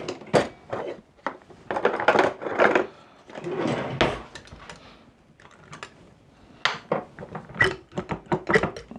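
Kitchenware being handled while freshly churned butter is separated from the buttermilk: a run of sharp knocks and clinks with a few longer scraping stretches, as a cup, bowl and utensil meet.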